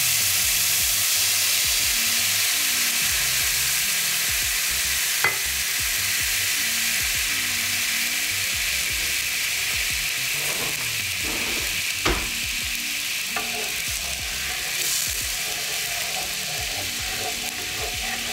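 Vermouth sizzling in a hot cast-iron skillet as it deglazes the pan: a loud, steady hiss that slowly eases off. It is broken by a couple of sharp knocks, one about five seconds in and one about twelve seconds in.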